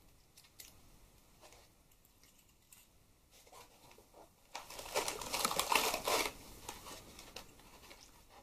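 Packaging being handled: a few faint clicks, then a couple of seconds of rustling and crinkling about halfway through, trailing off into light clicks and taps.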